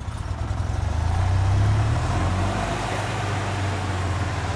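Golf cart driving along: a steady low drone that grows louder over the first second or two and then levels off.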